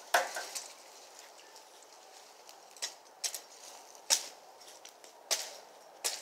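Dry twigs and branches cracking and snapping as brush is broken up by hand: about six sharp, irregular snaps, the loudest right at the start and about four seconds in.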